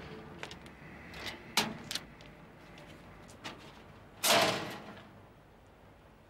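Metal letter-slot flap of a street post box being worked as a letter is posted: a few small clicks, then a louder clack of the flap a little after four seconds in.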